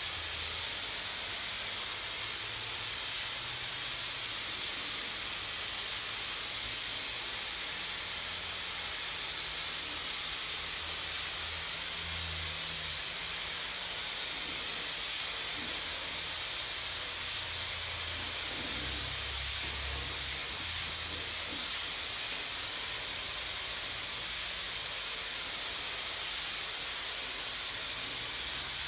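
Air-atomising gravity-feed spray gun hissing steadily as it sprays clear coat onto a painted fender.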